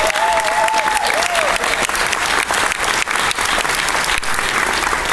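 Large audience applauding, many hands clapping steadily.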